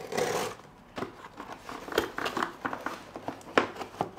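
Box cutter slicing through the tape and cardboard of a shipping box, then the cardboard being pried open: a scratchy rasp about the first half-second, followed by a run of small clicks and scrapes.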